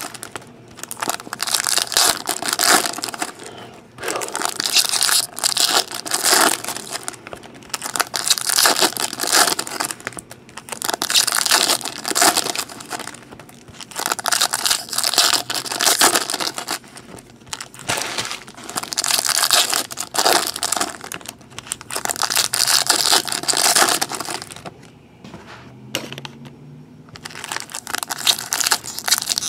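Foil trading card pack wrappers crinkling and tearing as packs are ripped open and handled, in repeated bursts a second or two long with short pauses between.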